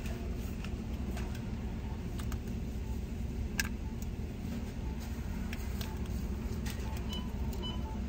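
Vehicle engine idling, heard from inside the cabin as a steady low rumble, with a single light click about three and a half seconds in.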